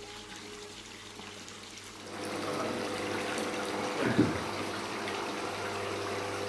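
Water in a turtle rehabilitation tank sloshing and splashing as a sea turtle is lifted up out of it by hand, over a steady hum. The water noise grows louder about two seconds in, with a brief louder splash about four seconds in.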